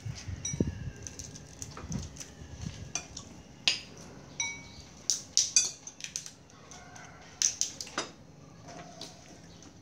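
Metal spoons clinking and scraping against ceramic plates and bowls of rice during a meal: scattered sharp clinks, several of them ringing briefly.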